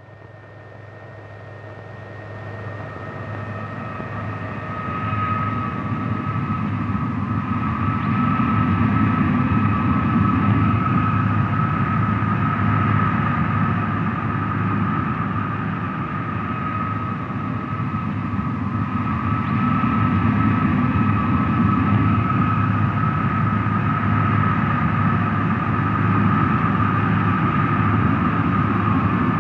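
Jet engine running: a steady high whine over a deep rumble and rushing noise, fading up from silence over the first several seconds and then holding steady.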